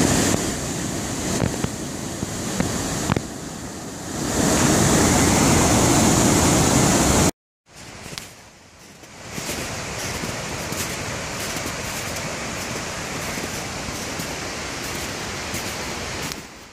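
Waterfall and whitewater rushing through a rocky gorge, a loud steady rush that eases for a couple of seconds and swells again. It cuts off abruptly about seven seconds in, followed by a quieter steady rushing noise with faint small crackles.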